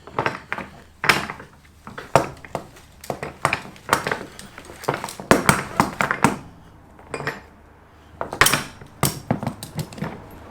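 Metal ratchet-strap buckle clicking and rattling as it is handled and worked: a run of sharp, irregular metallic clicks.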